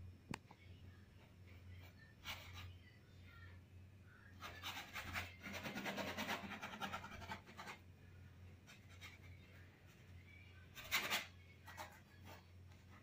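Flat paintbrush scrubbing acrylic paint onto canvas: faint scratchy strokes, a run of quick ones in the middle and a short burst near the end.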